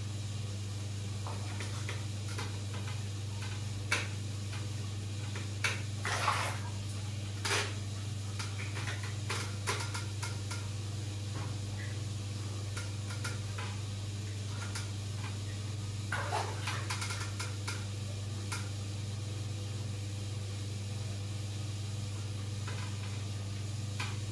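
Steady low hum of running aquarium equipment, with scattered small clicks and taps and a few short splashy bursts about six, seven and a half, and sixteen seconds in.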